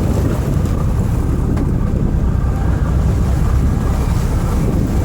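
Boat engine running steadily, a low even rumble, with wind buffeting the microphone.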